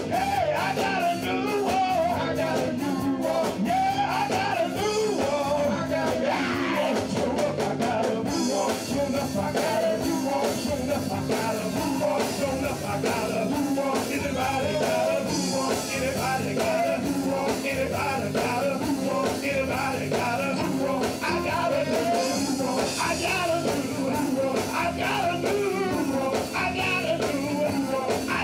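Gospel vocal group singing live in harmony over a band of electric guitar, drums and keyboard, with a steady beat throughout.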